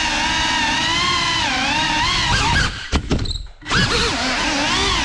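Small FPV quadcopter's brushless motors and propellers whining, the pitch rising and falling with the throttle. About three seconds in the whine cuts out almost completely for about half a second, with a couple of sharp clicks, then spools back up.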